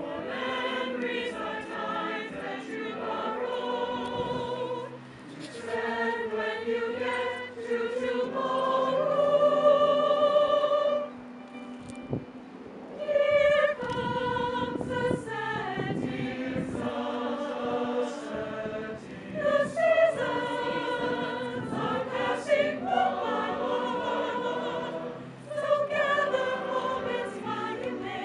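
Mixed choir of men and women singing in parts, in long sustained phrases, with a brief break in the singing about twelve seconds in.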